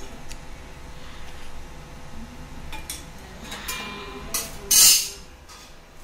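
Stainless-steel kitchen utensils clinking: a spoon knocking in a small steel cup of oil and a steel spatula being handled, with a few sharp clicks and a brief metallic ring. About five seconds in comes one short, loud burst of noise, the loudest sound here.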